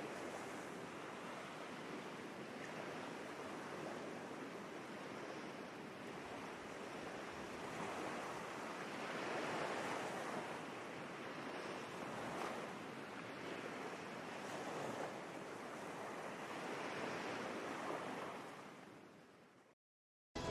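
Ocean waves washing in, a steady surf rush that swells and eases every few seconds, fading out near the end.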